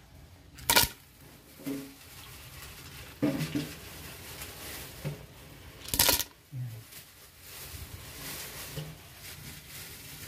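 A wooden spatula working in a metal pot of thick sauce with clams and mussels: quiet shuffling with two sharp knocks about five seconds apart, like wood or shells striking the pot.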